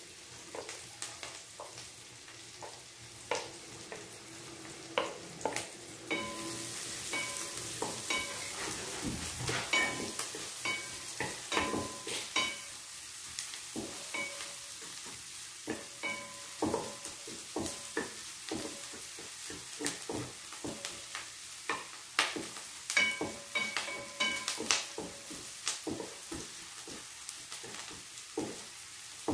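Chopped garlic and onion sizzling in butter in a frying pan, with a wooden spatula knocking and scraping against the pan as it is stirred. The sizzle grows louder about six seconds in.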